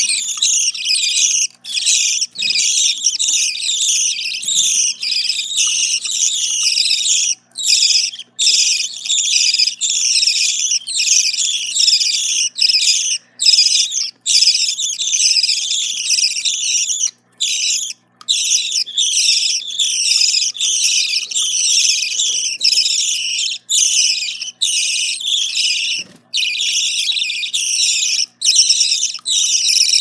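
Budgerigar chicks begging to be fed: a dense, continuous chorus of rapid high-pitched chirps from several chicks at once, broken by a few brief pauses.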